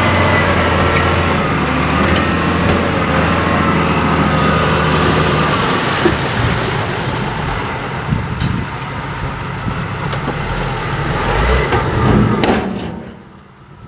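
Diesel engine of heavy earthmoving machinery running loudly and steadily, with grinding and rattling over it; the sound falls away sharply about a second before the end.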